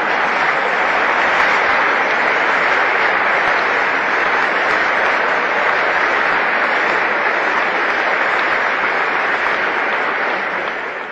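Large audience applauding, a dense steady clapping that swells up at the start and dies away near the end.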